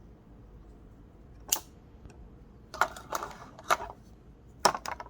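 Half a dozen sharp, irregular clicks from a small lockback pocket knife being handled, its blade and lock mechanism clicking.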